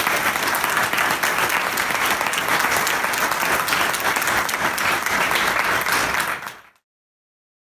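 Audience applauding steadily, then fading out quickly into silence near the end.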